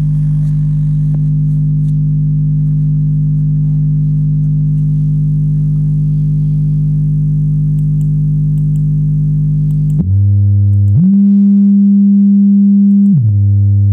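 Low 50 Hz sine test tone played through iK iLoud Micro Monitor speakers, buzzy with strong overtones. About ten seconds in it steps up in pitch twice, to 200 Hz, and gets louder, then steps back down near the end.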